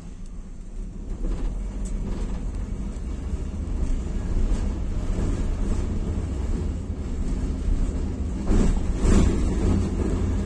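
Tram car running on rails, heard from the driver's cab: a steady low rumble with scattered clicks and knocks, the loudest cluster of knocks and rattles about eight and a half seconds in.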